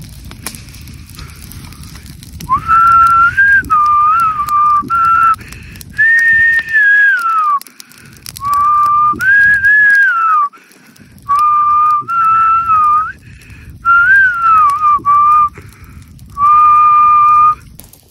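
A person whistling a slow tune in short phrases of held notes with small glides up and down, loud against a low background with faint crackling from a small fire of dry leaves.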